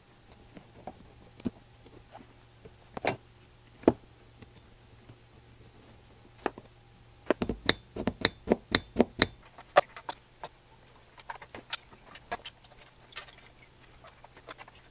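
Small metal parts of a 1952 Johnson Sea Horse outboard carburetor clicking and tapping as they are fitted back together by hand, with a quick run of clicks about halfway through.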